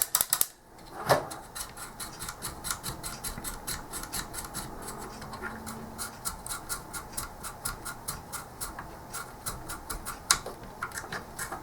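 A fast, even run of small clicks as the switches and controls on a Philips CM8833 Mk2 monitor board are worked back and forth to spread freshly sprayed contact cleaner, with a louder click about a second in and another near the end.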